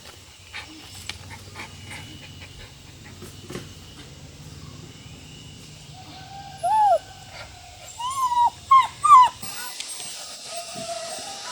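A dog whining: one short whine that rises and falls about six and a half seconds in, then a quick run of three or four more near the end. A steady hiss comes in just before the end.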